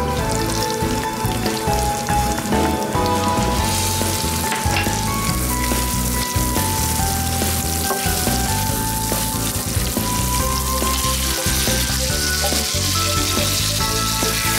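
Spices sizzling in hot oil in a stainless steel pot, with bay leaves and cumin seeds frying, then garlic and chopped onion stirred in with a wooden spoon; the sizzle gets louder about four seconds in. Light background music plays over it.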